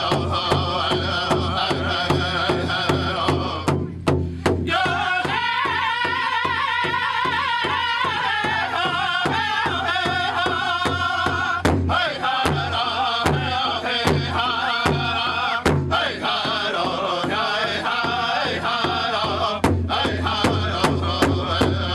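Powwow drum group: a big drum struck in a steady beat while the singers chant together, their voices wavering in pitch.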